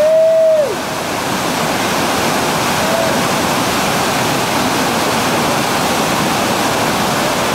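Heavy whitewater of the Tallulah River's Oceana rapid, a steady loud rush. A short high call rises and falls over it at the start, with a fainter one about three seconds in.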